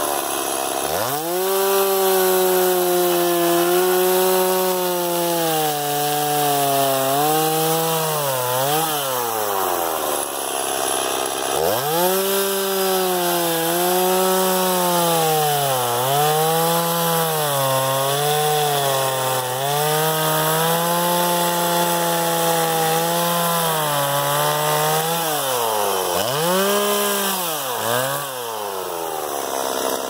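STIHL MS 260 two-stroke chainsaw bucking a log into firewood rounds. The engine's pitch sinks and wavers while the chain is loaded in the wood, and rises sharply when it runs free, about ten seconds in and several times near the end as the cut finishes.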